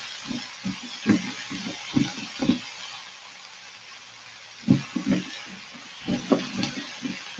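Julienned chayote sizzling as it sautés in a pan, stirred with a silicone spatula: a steady sizzle under spells of soft knocks and scrapes as the spatula turns the strips, with a lull in the stirring in the middle.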